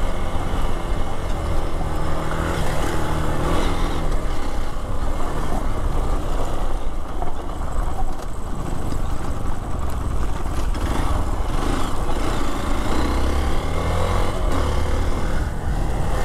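Hero Xpulse 200 4V's single-cylinder engine running as the bike is ridden, its revs rising and falling with the throttle.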